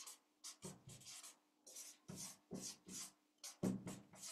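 Felt-tip marker writing on flip chart paper: a series of short scratching strokes, about two a second, as letters are drawn one after another.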